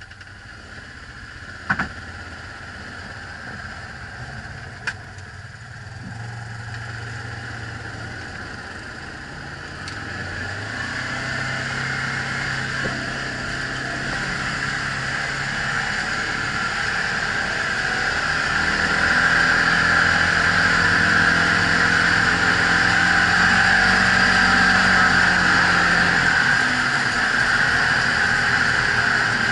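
Side-by-side UTV engine running as the machine pulls away and drives along a snowy trail, growing steadily louder as it picks up speed, with a rising hiss over the engine note. Two sharp clicks come in the first five seconds.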